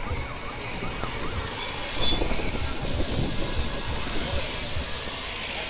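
Steady mechanical rumble from the rescue crew's working equipment, with a sharp crack and ringing glassy clink about two seconds in as the car's side window is broken.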